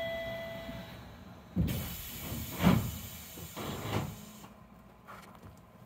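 Monorail car at a station stop: a chime tone dies away about a second in, then the sliding doors close with a burst of hiss and three dull thuds.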